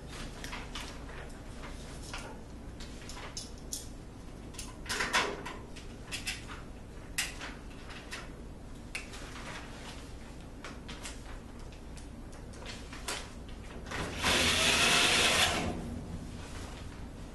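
Scattered light clicks and taps of a steel corner bracket and screws being handled and fitted against a sheet-metal storage cabinet. Near the end, a cordless drill runs for about a second and a half, driving a screw into the bracket.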